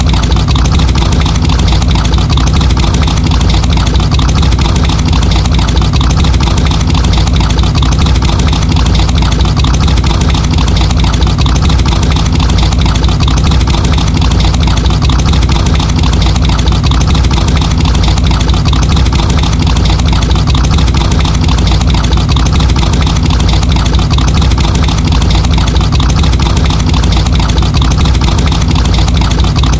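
Muscle car engine idling steadily with a loud, even, fast low pulse.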